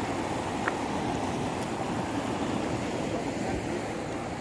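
Sea surf washing over a rocky shore, a steady rushing, with one brief tick less than a second in.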